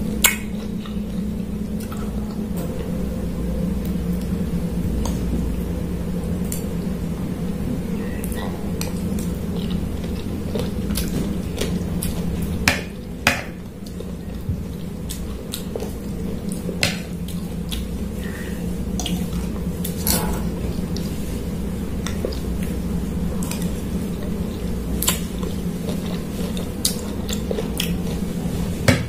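Metal spoon and fork clinking and scraping on a plate at irregular intervals as food is scooped up, over a steady low hum.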